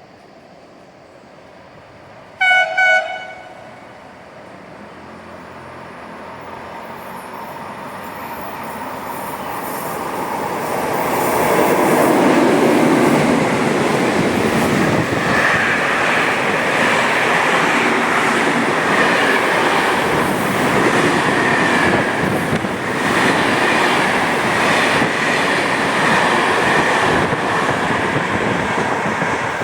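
Freight train hauled by two FS E.652 'Tigre' electric locomotives: two short horn blasts about two and a half seconds in, then the train's rumble growing louder for about ten seconds as it approaches, and a loud, steady passing run of locomotives and freight wagons with wheels clattering and a high squeal from the wheels on the rails.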